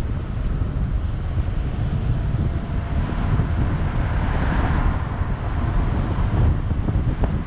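Low wind rumble on an action camera's microphone with road noise from a car driving at city speed; an oncoming car passes about halfway through, with a brief swell of tyre noise.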